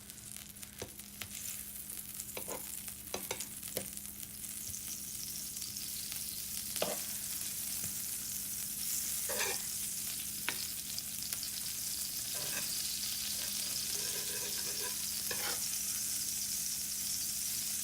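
Butter and sourdough bread sizzling in a very hot skillet, the sizzle growing louder over the first several seconds and then holding steady. A few light clicks come through the sizzle.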